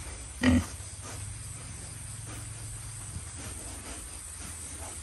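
A pig grunts once, short and loud, about half a second in, over a low steady hum.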